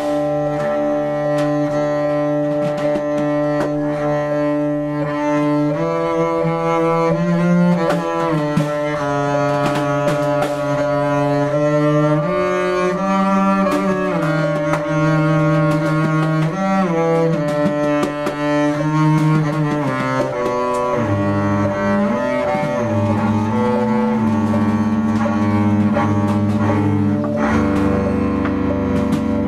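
Freely improvised acoustic music: a double bass bowed in long low tones that slide between pitches, with a vibraphone struck with mallets and also bowed on its metal bars for long ringing tones.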